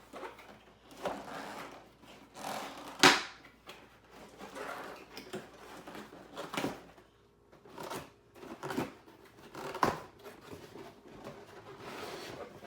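Cardboard toy box and its plastic-wrapped contents being handled and unpacked: irregular rustling and knocking, with one sharp knock about three seconds in.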